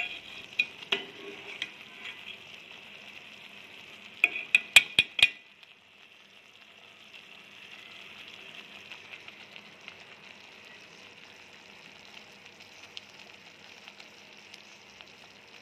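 Kadhi curry with pakoras bubbling in a pot over a high flame. A metal spoon clinks against the pot several times in the first five seconds, ending in a quick run of clicks; after that only the steady, quieter bubbling.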